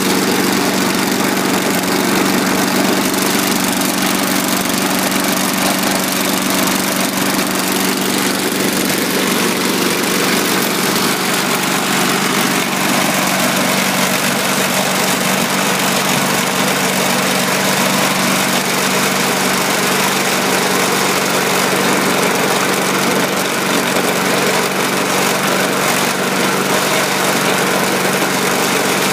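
1991 Tecumseh 4 HP single-cylinder engine on a Craftsman Eager-1 push mower running at a steady speed. It runs on its own after its carburetor and fuel tank were cleaned.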